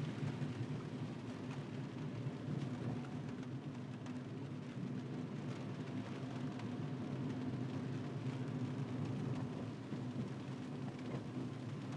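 Car driving in the rain on a wet road: a steady low road-and-engine rumble under an even hiss of rain and tyre spray.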